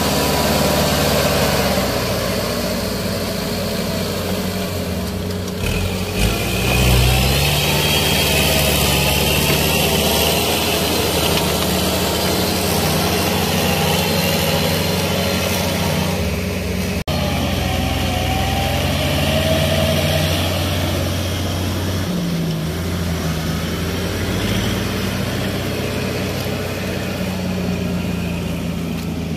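Kubota L5018 tractor's diesel engine running steadily under load while pulling a rotary tiller through paddy soil.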